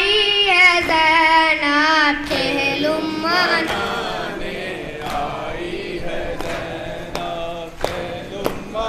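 A boy's voice singing a nauha lament, with wavering held notes, loud for the first two seconds or so and then fading under fainter voices of the group. From about five seconds in come sharp slaps of palms on chests (matam), roughly one or two a second.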